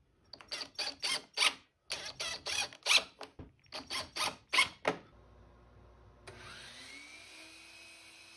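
A cordless impact driver drives three screws into plywood, each in a short run of rapid rattling pulses, about five a second. After about five seconds a DeWalt sliding miter saw's motor spins up with a rising whine and keeps running at speed, quieter than the driver.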